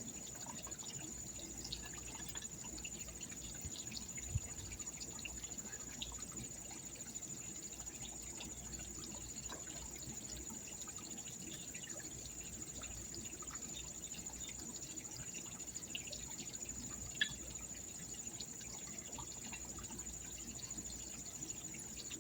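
Pond water trickling and pouring from the filter and waterfall, under a steady high-pitched whine, with small ticks and two sharper knocks, one about four seconds in and one about seventeen seconds in.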